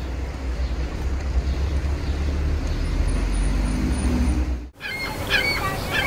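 A steady low outdoor rumble, then, after a sudden cut near the end, Canada geese honking in short calls.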